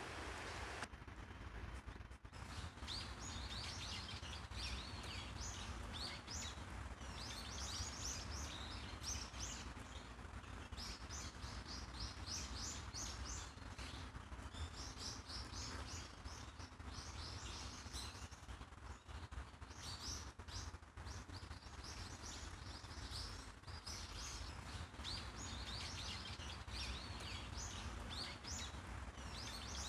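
Many small birds chirping in quick runs of short, high notes, over a low steady rumble.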